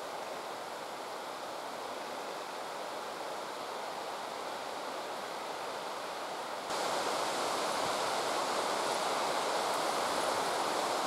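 Steady rushing outdoor background noise, even and without distinct events, that jumps abruptly louder about seven seconds in.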